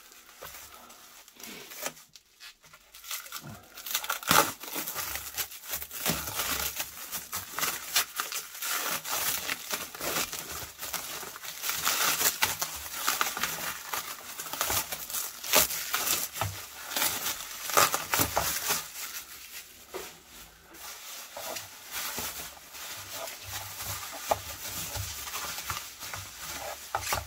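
Plastic packing being unwrapped by hand: cling film crackling as it is pulled and torn away, then bubble wrap rustling and crinkling as it is unfolded, in a long run of irregular crackles.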